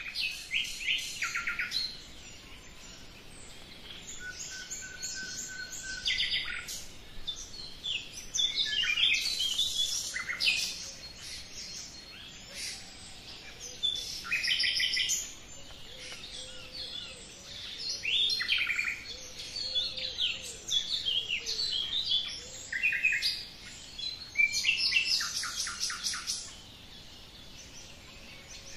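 Songbirds singing: short phrases of quick, high repeated notes and descending trills, following one another a few seconds apart.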